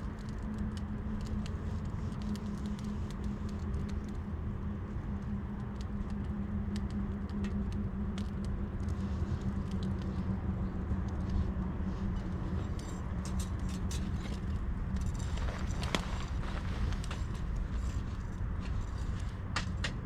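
Wood campfire crackling, with scattered sharp pops and a brief cluster of louder crackles about three-quarters of the way through, over a steady low rumble and hum.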